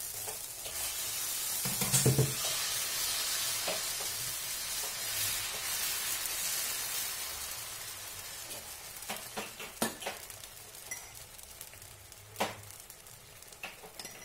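Ragi (finger millet) dosa batter sizzling on a hot dosa pan while a ladle spreads it in circles, scraping and now and then knocking against the pan, with the loudest knock about two seconds in. The sizzle is strongest at first and dies down toward the end.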